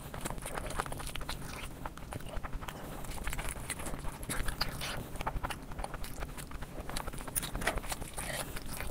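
Close-miked eating sounds: a hand squishing and mixing fried rice with curry gravy, and chewing with a full mouth, heard as irregular soft smacks and clicks.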